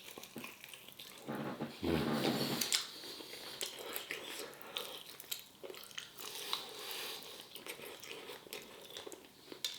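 Close-up mouth sounds of eating a crispy fried chicken wing: biting, crunching and chewing with many small clicks and smacks, and a brief hum-like voice sound about two seconds in.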